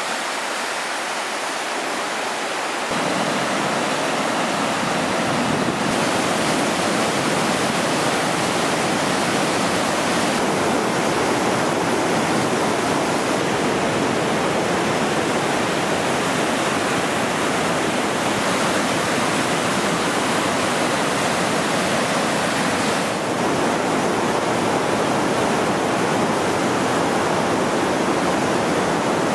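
River rapids rushing over rock ledges, a steady noise of fast water that steps up in loudness about three seconds in.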